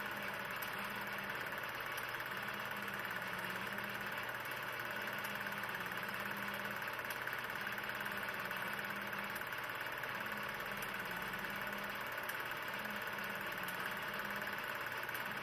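Steady mechanical running noise of a 16 mm film projector, a constant whirr with hiss and a low pulsing hum, unchanged throughout; the film itself is silent.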